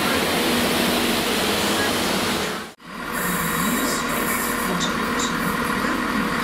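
Diesel multiple-unit trains at a station platform: a departing unit's engines and wheels run with a steady low hum, cut off abruptly about three seconds in. After the break comes the steadier diesel hum of another unit approaching, with its pitch gliding up and down and a few brief high squeaks.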